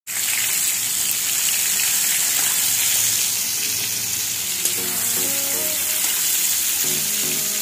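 Mushrooms sizzling steadily as they fry in hot oil in a kadhai, turned now and then with a steel spatula.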